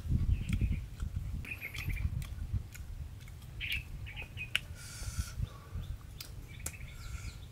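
Small birds chirping in short, scattered calls, with a person's chewing close by at the start.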